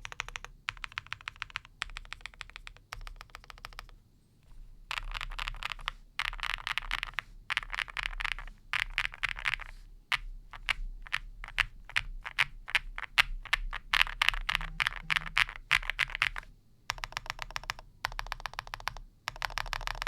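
Typing in fast bursts on an Owlab Spring mechanical keyboard with lubed and filmed Harimau tactile switches, an aluminium plate and Cherry-profile keycaps, the keystrokes many to the second with short pauses between runs.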